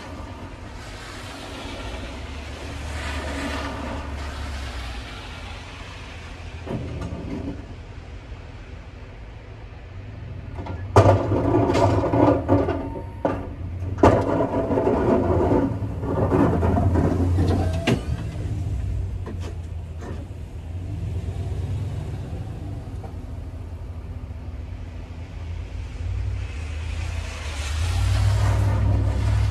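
Pickup truck with a front snow plow running, its engine a steady low rumble as it pushes snow. About a third of the way in comes a louder stretch of several seconds with scraping and clanks from the plow. Cars swish past on the wet road near the start and near the end.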